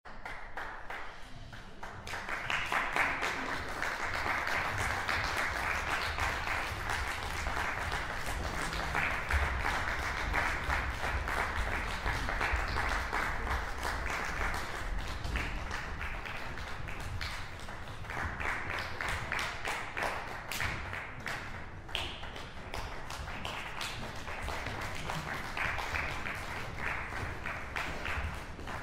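Audience applauding, a dense steady clapping that sets in about two seconds in and keeps going throughout.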